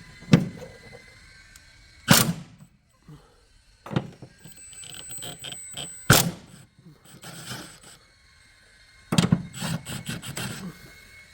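Metal tools and sockets knocking against bolts and the car's underside while the 14 mm bolts are undone. There are about five separate sharp knocks, with runs of quick clicking in between.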